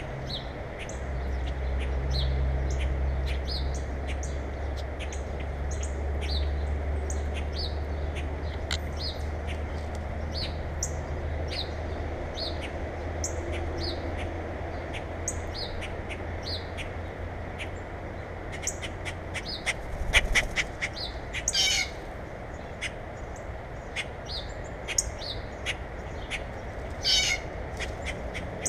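Small songbirds at a feeder chirping over and over in short high notes, with a few harsh, chattering calls in the last third. Under the first two-thirds runs a low steady hum that stops about two-thirds of the way in.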